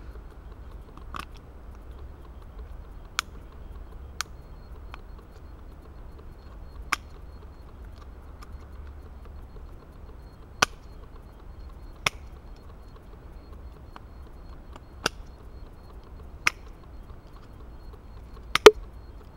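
Small garden shears snipping a thin wooden stick: about ten sharp, separate clicks a second or more apart, the loudest a quick double snap near the end.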